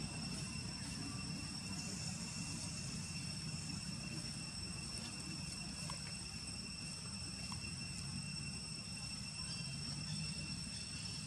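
Outdoor ambience: a steady, high-pitched insect drone holding one pitch throughout, over a low, even rumble.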